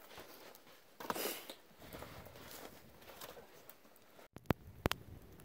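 Footsteps in snow and split firewood being set onto a woodpile. After a sudden break, a burning campfire gives two sharp pops less than half a second apart, the loudest sounds here.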